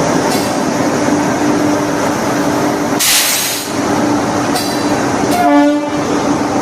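Indian Railways express passenger train pulling out of the station, with a steady rolling noise and a steady hum. A sharp hiss comes about three seconds in, and a brief pitched tone sounds near the end.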